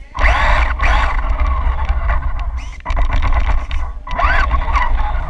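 Motor of a 1/10 four-wheel-drive RC Nissan Silvia whining up and falling back in pitch several times as the car speeds up and slows, over a heavy low rumble of tyre and chassis vibration picked up by a camera mounted on the car.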